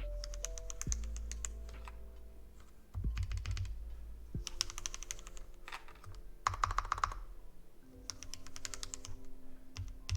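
Mechanical keyboard keys being pressed in about five quick runs of clacks to test each switch on a freshly built NK65 fitted with Creampaca linear switches (Durock housings, cream stems) and Cherry-profile keycaps. Some of the pressed keys do not register because of bent switch pins.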